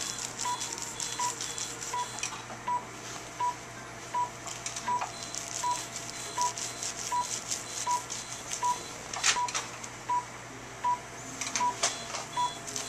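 Cynosure SmartLipo Triplex laser console beeping steadily while the laser fires, one short beep about every three-quarters of a second, the emission tone that shows the laser is active. A higher double pip sounds at times, plainly near the end, over faint clicks and rustling from handling the cannula and drapes.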